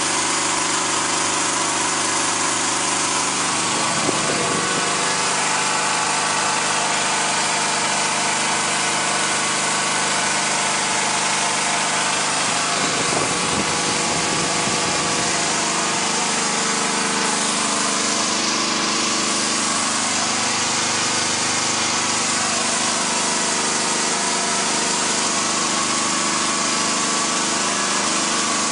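Small 3 kW generator's engine running steadily at constant speed under load from a bank of incandescent bulbs.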